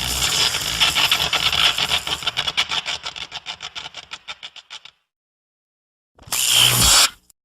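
A King Ghidorah (2001 film) monster sound effect: a dense hissing crackle breaks into rapid pulses that slow and fade out. After a short silence comes a brief loud burst with a low thump, near the end.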